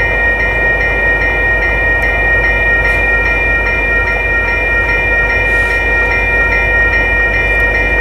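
Railroad grade-crossing bells ringing in a steady, rapid repeating pattern, over the low rumble of freight cars rolling through the crossing.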